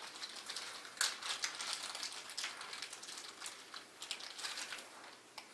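Light clicking and rustling of hands handling stiff electrical wires and a plastic wire nut, with a sharper click about a second in.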